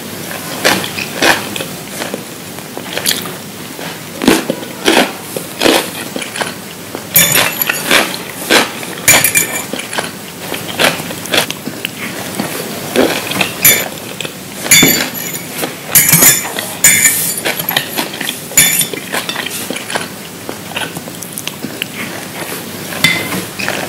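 Close-miked eating sounds: irregular crisp crunches and chewing, with the loudest, densest crunching through the middle of the stretch.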